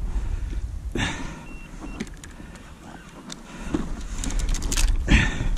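Water splashing and knocking as a hooked fish is drawn into a landing net, with sharp splashes about a second in and again near the end, over a steady low rumble.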